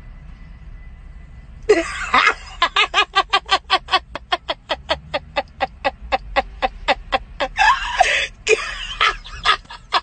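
A long run of cackling laughter, in quick short pulses about five a second. It starts about two seconds in, after a faint hum.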